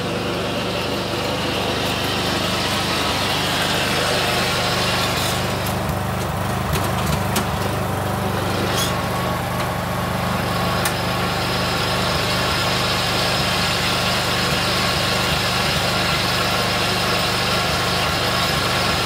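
Small single-cylinder engine of a Craftsman riding mower converted into a go-kart, running steadily while the kart drives under its own power. A few sharp clicks come about halfway through.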